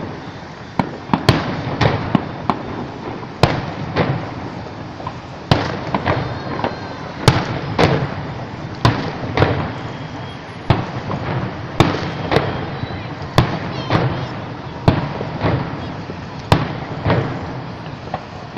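Aerial fireworks shells bursting overhead: a long, irregular string of sharp bangs, about one or two a second, each trailing off in echo.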